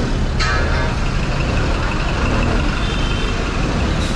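Steady low rumble of motor vehicle engines idling. About half a second in there is a short sharp sound, followed by a faint thin high tone held for a few seconds.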